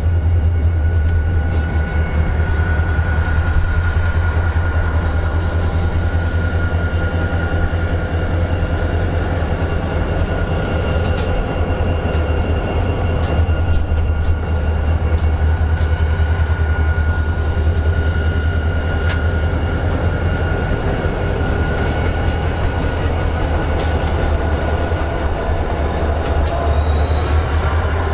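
A consist of EMD SD40-2 diesel locomotives approaching and passing close, their 16-cylinder two-stroke engines making a heavy, steady low rumble. A high steady squeal runs above it, with scattered sharp clicks from the rails.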